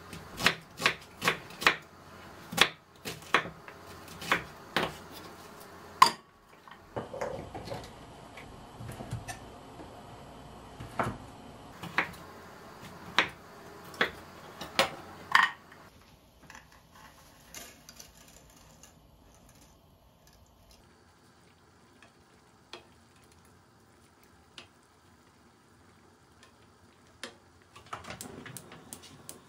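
Kitchen knife chopping an onion on a wooden cutting board: sharp knocks of the blade on the board, about two a second for the first six seconds, then single cuts about a second apart until about fifteen seconds in. After that only faint, occasional taps.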